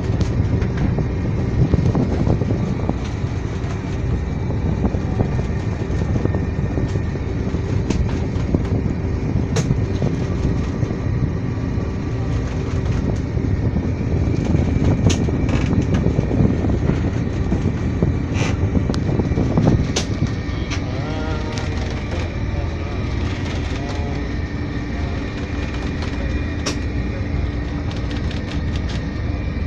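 A fishing boat's engine running steadily under way, heard inside the wheelhouse as an even, low drone with a few sharp clicks scattered through it.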